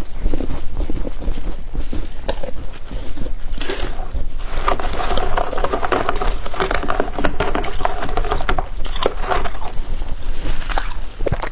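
Flaky freezer frost crunching and crackling in dense, irregular crackles.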